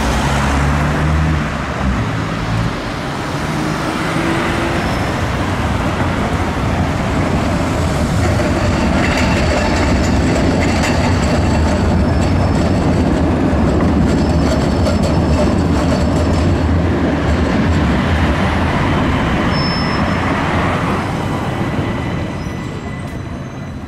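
Stadler Citylink tram-train rolling past on street tram track: steady running noise with a low hum that builds as it comes close, peaks in the middle and fades away toward the end, mixed with passing road traffic.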